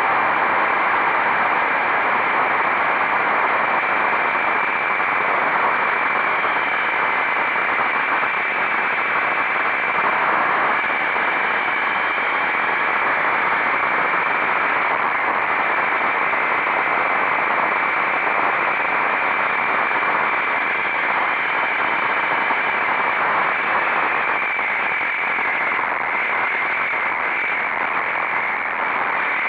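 Steady rushing wind noise on the microphone of a motorcycle riding at speed, drowning out the engine.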